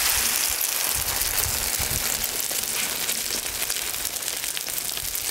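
Skewers coated in flour and egg frying in hot oil in a pan: a steady sizzle with dense fine crackling.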